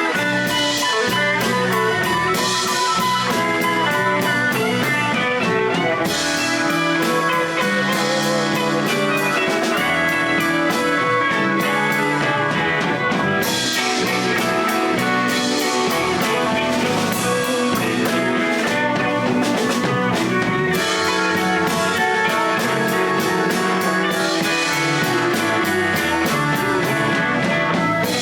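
Live blues band playing: electric guitar over bass and a drum kit, steady and loud.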